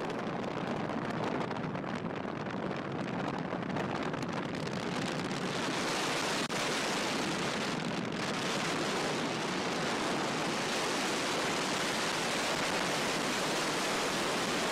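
Steady rushing road and wind noise from a car driving at highway speed.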